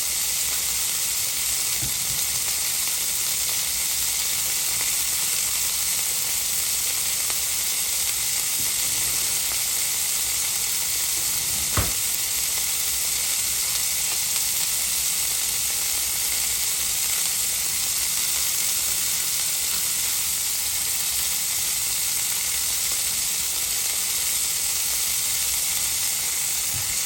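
Filet mignon steaks searing in a hot skillet: a steady, even sizzle of frying fat, with one sharp click about twelve seconds in.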